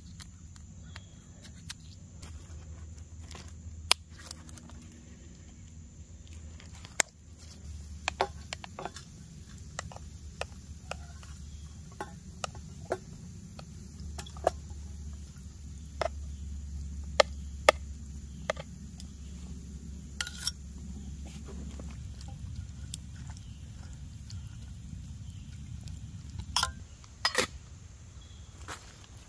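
Scattered clicks and knocks of camp cooking utensils: a spoon scraping and tapping against a stainless steel cup as food is spooned into it from a plastic container, over a steady low background hum.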